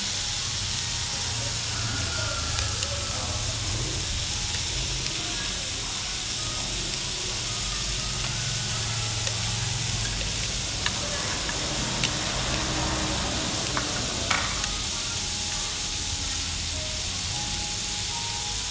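Beef, bacon and seafood sizzling steadily on a hot domed tabletop grill pan, with a few light clicks now and then.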